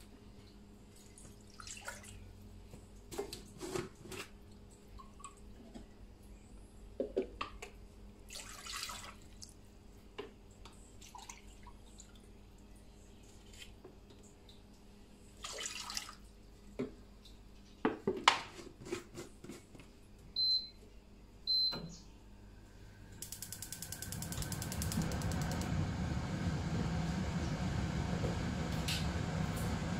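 Water poured from a plastic jug into a drinking glass and tipped into a pot, in several short pours and splashes, with two light clinks. Then a gas hob's igniter clicks rapidly for a second or so and the burner catches, its gas flame hissing steadily and more loudly.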